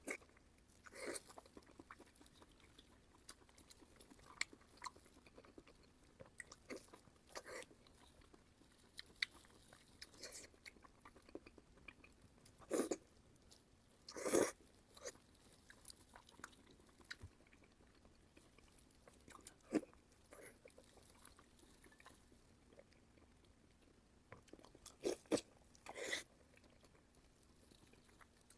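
Close-up chewing and biting of pork, with scattered short wet crunches and mouth clicks, a few louder bites around the middle and near the end.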